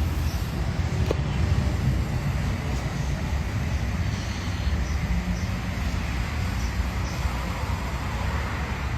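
A steady low rumble with a noisy hiss over it, like a running vehicle heard from inside, and a single faint tick about a second in.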